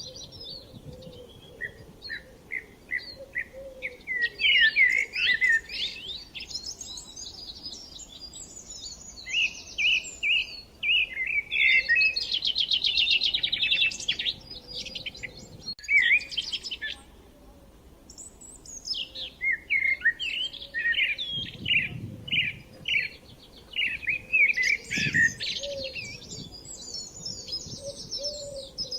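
Several songbirds singing together: varied whistled phrases and fast trills following one another in bursts, with short pauses between them.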